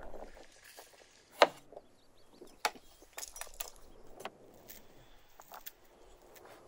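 A cleaver chopping lettuce on a wooden cutting board: a few separate sharp knife strikes, the loudest about a second and a half in, with lighter knocks as chopped vegetables go into a wooden bowl.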